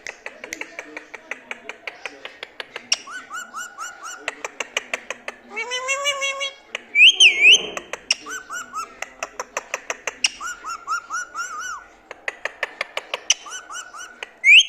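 Ringneck parrot calling: groups of quick chirps, a pitched whistle-like call about six seconds in, and loud shrill squawks about seven seconds in and again at the end, over a rapid run of clicks at about five a second.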